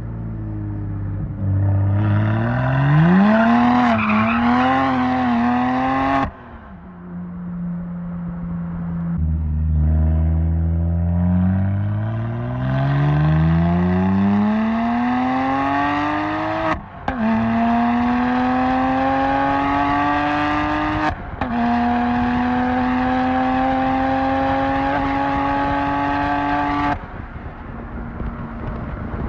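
BMW 1M Coupe's twin-turbo N54 straight-six, through a full Akrapovic titanium exhaust, accelerating hard: the revs climb, drop on a lift-off, then climb again with two quick upshifts a few seconds apart before the throttle is lifted near the end.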